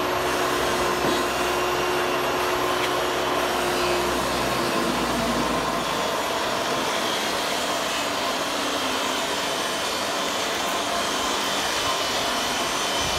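Steady machine-like whooshing noise with a low hum underneath that stops about five seconds in.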